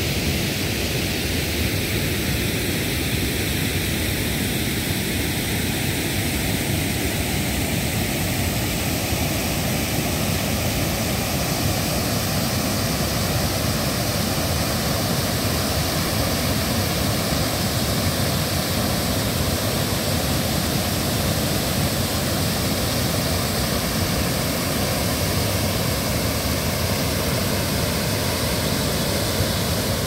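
Steady rushing roar of a waterfall: water pouring over a wide stone weir into a pool below.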